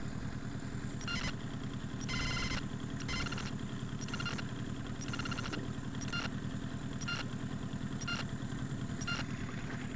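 A 15-horsepower outboard motor on an inflatable boat running steadily. A high-pitched sound repeats about once a second over the engine.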